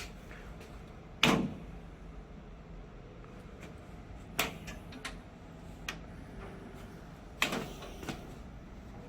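Three sharp knocks or clunks about three seconds apart, the first the loudest, with a couple of fainter taps between them, over a steady low background noise. They are handling and dismantling noises from taking apart a large, old air conditioner.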